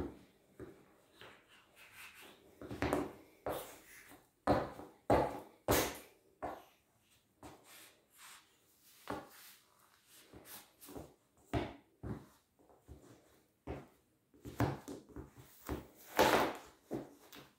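Rubber soles of Nike Air Max sneakers pressing, rolling and grinding a small inflatable plastic beach ball against a tiled floor: irregular short rubbing and scraping noises, some lasting about half a second, with shoe steps on the tiles, the loudest near the end.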